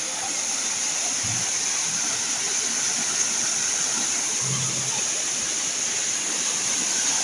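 Waterfall cascading over rock ledges into a pool: a steady rush of falling water.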